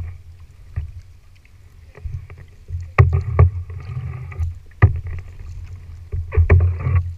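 Kayak paddles stroking through the water with swishing splashes, and several sharp knocks as the paddles are worked beside the plastic hull, over a low rumble of water on the hull.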